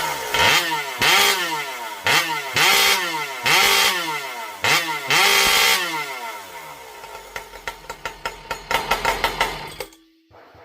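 Two-stroke chainsaw engine revved hard in about seven quick throttle blips, each rising and falling in pitch. It then drops back to idle and stops about a second before the end.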